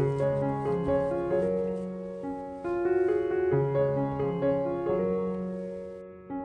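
Background piano music: a gentle melody of changing notes over held low notes.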